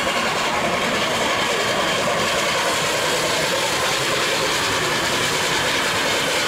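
Large steam locomotive rolling slowly past under steam: a steady, even noise of exhaust and running gear with no distinct beats.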